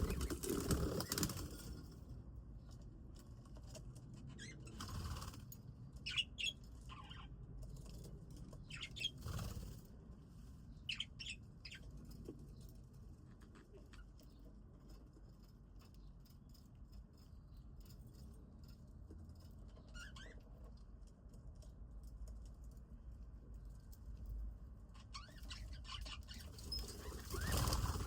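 Budgies in an aviary fluttering their wings in short bursts a few times, with brief chirps in between.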